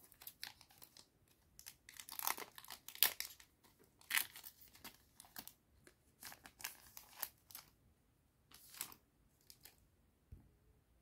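Foil trading-card booster pack wrapper being crinkled and torn open in short, irregular rustles with pauses between them.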